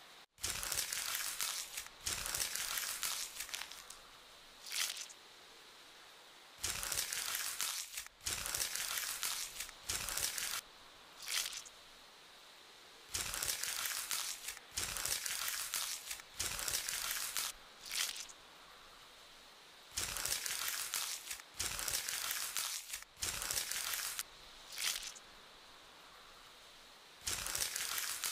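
ASMR sound effect of a knife scraping and crunching: repeated bursts of crisp, hissy noise, each about one to two seconds long, with short near-silent gaps between them.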